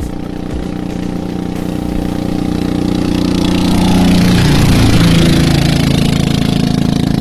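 Single-cylinder dompeng diesel engines of klotok river boats running at speed. One boat passes close by with a rush of spray and wake; the sound swells to its loudest about four to five seconds in, and its note drops as it goes by.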